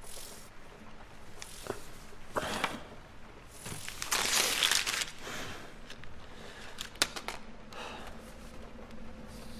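Sheets of paper being rustled and crumpled by hand in several short bursts, the longest and loudest about four seconds in, with a sharp click about seven seconds in.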